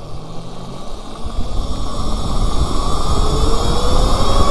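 QS138 electric mini bike motor and drivetrain whining under hard acceleration, the whine rising steadily in pitch as speed builds. Wind noise on the microphone grows louder with it.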